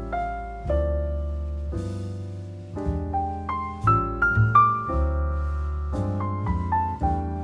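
Background piano music: a slow melody of struck notes that ring and fade, over low bass notes.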